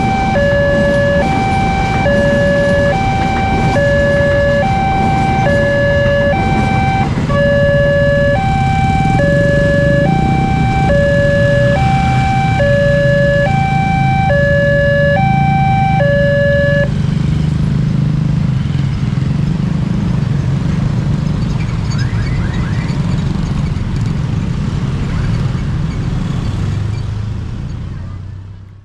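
Railway level-crossing warning alarm sounding two alternating tones, switching about twice a second, which stops about 17 seconds in. Under it a heavy low rumble, a train passing over the crossing, swells through the middle and fades toward the end.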